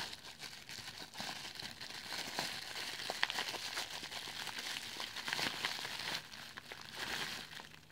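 Bubble wrap crinkling and crackling as it is handled and unwrapped by hand, with many small sharp crackles.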